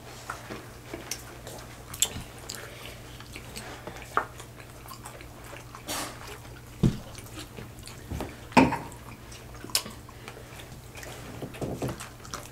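Eating sounds: hard taco shells crunching and being chewed, in scattered short bursts a second or two apart, over a low steady hum.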